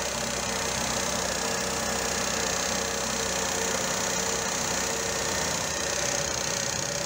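VW Polo 3 semi-injection petrol engine with single-point Bosch throttle-body injection, idling steadily.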